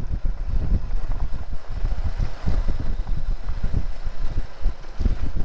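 Uneven wind buffeting on a helmet-mounted GoPro microphone as a motorcycle rides a gravel dirt road, with the bike's engine running underneath.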